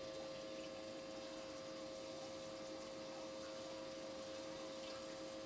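Water running steadily through the sand channels of a model river on a stream table, under a steady hum.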